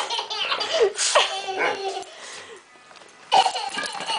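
A little girl giggling in short bursts, about three times, while a puppy plays.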